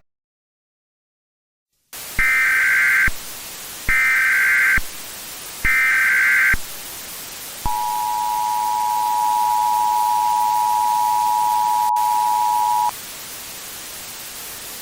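Emergency Alert System broadcast tones. After about two seconds of silence, three short data bursts of the SAME header sound about two seconds apart, then the two-tone EAS attention signal is held steady for about five seconds before cutting off, all over a constant hiss.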